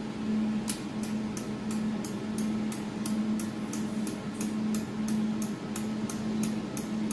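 Adjustment knob of a desktop jewelry laser welding machine clicking as it is turned by hand, about three clicks a second, moving the laser support back up. A steady electrical hum from the running machine lies underneath.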